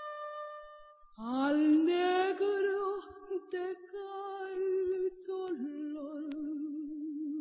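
A woman singing solo, holding long slow notes with a wide vibrato. About a second in, the voice swells in from a short lull, scoops up into the note and sustains it to the end.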